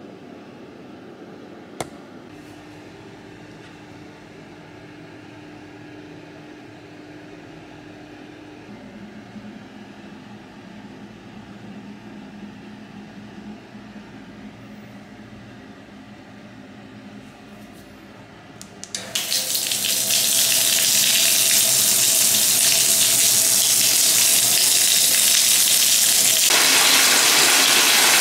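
Water running from a wall-mounted bath spout into a nearly empty freestanding bathtub, starting suddenly about two-thirds of the way in and holding steady, after a faint low hum and a single click.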